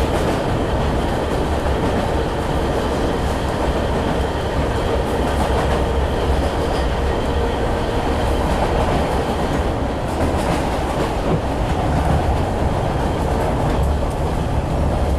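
Train running on rails: a steady rumble with wheel clatter over the track joints.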